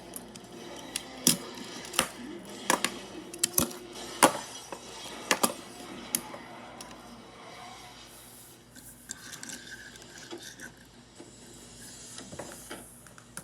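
Irregular sharp clicks and clacks of small hard objects knocking together, frequent in the first half and thinning to faint ticks after about seven seconds.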